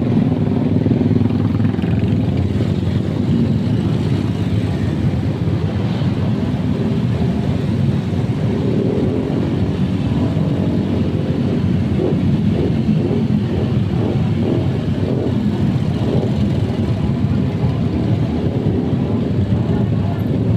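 A vehicle engine running steadily through its exhaust, a loud, even, rough low sound of rapid firing pulses.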